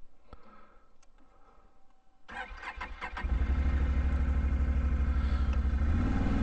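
Can-Am ATV engine being started with its electric starter: after a few faint clicks, the starter cranks for about a second beginning a little over two seconds in, then the engine catches and settles into a steady idle.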